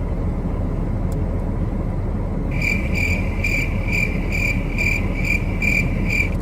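Inside a car, a steady low road-and-engine rumble. From about two and a half seconds in, a vehicle warning chime beeps about twice a second, nine beeps in all, and then stops.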